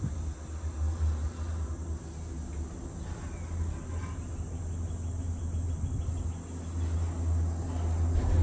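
Steady low rumble of a moving Disney Skyliner gondola cabin in motion, with a thin steady high-pitched whine above it; the rumble grows louder near the end.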